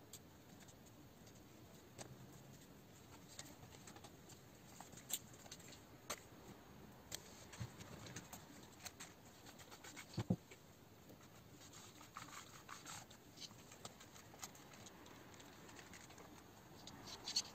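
Faint, scattered clicks, taps and rubbing of gloved hands handling the plastic and metal parts of a 1/10-scale RC buggy chassis and a wheel, with one louder knock about ten seconds in and a quick run of clicks near the end.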